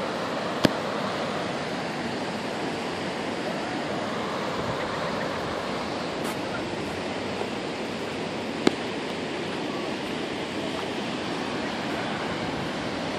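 Steady rush of whitewater from river rapids, with two short sharp clicks, one just under a second in and one about two-thirds of the way through.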